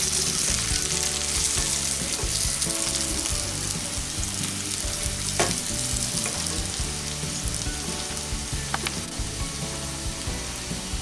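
Potato slices sizzling in hot oil in a nonstick pan, scraped and stirred with a wooden spatula at first. The sizzle slowly dies down as the pan cools with the gas turned off. There is a sharp click about halfway through.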